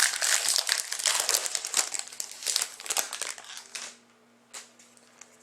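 Foil trading-card pack wrapper crinkling as it is torn open and handled, dying down to a few faint clicks about four seconds in.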